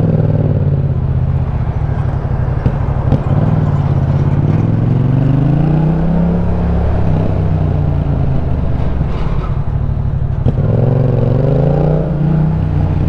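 Yamaha MT-07's 689 cc parallel-twin engine through an Akrapovic titanium exhaust, riding at low speed. The revs climb and drop back twice, about four seconds in and again about ten seconds in.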